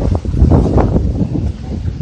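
Storm wind buffeting the microphone: a loud, uneven low rumble that rises and falls with the gusts, over a faint hiss.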